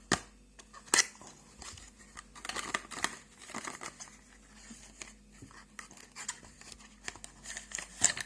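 Hands handling a tablet's charger and cable in loose plastic packaging, with crinkling and rustling and a few sharp clicks, two of them in the first second.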